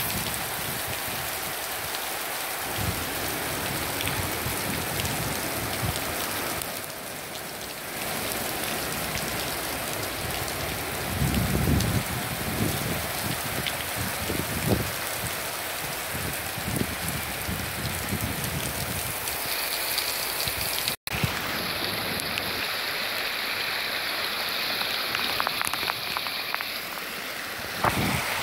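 Heavy rain falling steadily, a dense even hiss of a downpour on the ground and rooftops.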